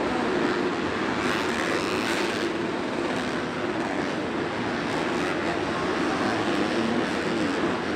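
Several Supercross dirt bike engines racing round the track: a steady engine drone whose pitch wavers up and down as the riders work the throttle.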